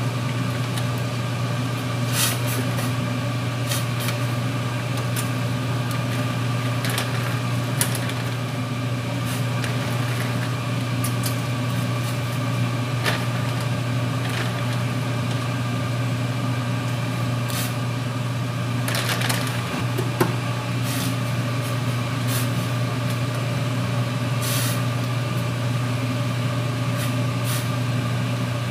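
Steady low hum of a kitchen range hood fan, with scattered short crackles and rustles as dry instant noodles are broken by hand out of a plastic bag into a pot.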